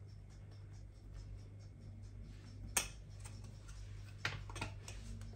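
Light clicks and taps of a spoon against a ceramic mixing bowl as baking powder is added to cake batter, with a sharper click about three seconds in and two more a little past four seconds. A faint steady hum runs underneath.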